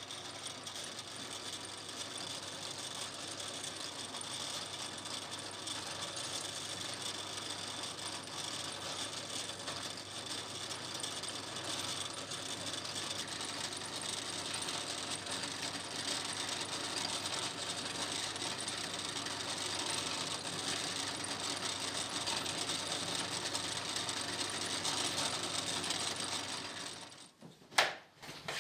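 Benchtop drill press running steadily, its motor whirring while a 1 mm bit pre-drills a row of nail holes halfway into a wooden wing-rib cap strip. It stops shortly before the end, followed by a single click.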